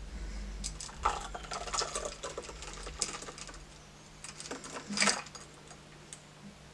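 Ice clicking and rattling inside a glass-and-metal Boston shaker as the shaken cocktail is strained through the gap into a martini glass, with one louder clatter about five seconds in.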